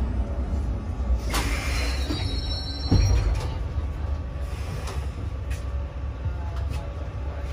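Tram running on its rails, heard from inside the car: a steady low rumble, a sharp rattle about a second and a half in, then a brief high wheel squeal and a thump around three seconds in.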